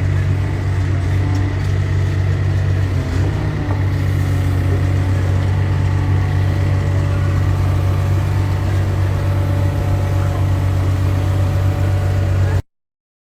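A steady low drone, like engine or road noise, that cuts off suddenly near the end.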